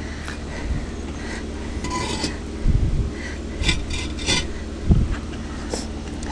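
Hollow concrete blocks knocking and scraping against one another as they are lifted and set down, a few sharp clinks among several dull thuds.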